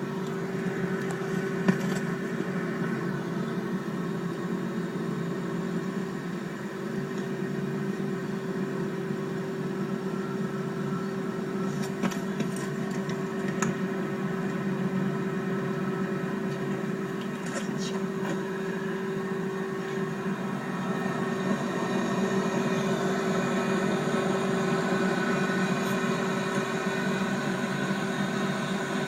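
The compressor and condenser fan of a four-door commercial glass-door refrigerator running steadily, a constant mechanical hum with a few faint clicks.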